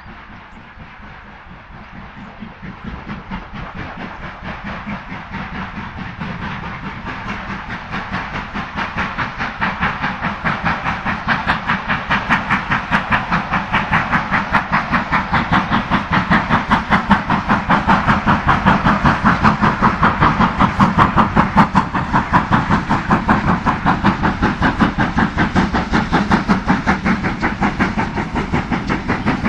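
BR Standard Class 5 4-6-0 steam locomotive No. 73082 working under steam, with a rapid, even beat from its exhaust. The beat grows steadily louder over the first two-thirds, then eases a little near the end.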